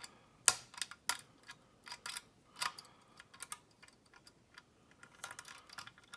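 Irregular light metallic clicks and taps of a pick wire and tensioner working the levers inside a Big Boy lever padlock, the loudest click about half a second in and a quick run of clicks near the end.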